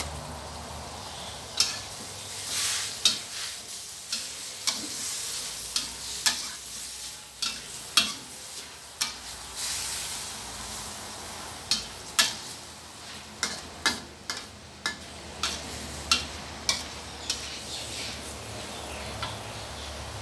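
Metal spatula scraping and knocking against a stainless steel wok in irregular sharp strikes, over a steady sizzle of bamboo shoots and minced pork stir-frying.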